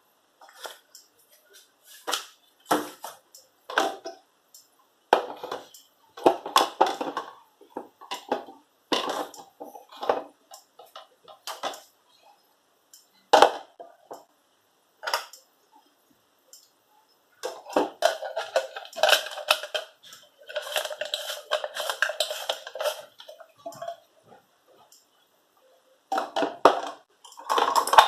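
Whole peppercorns rattling and crunching in a NutriBullet's plastic cup, in short irregular bursts with pauses, then a denser stretch of crunching a little past the middle and again near the end.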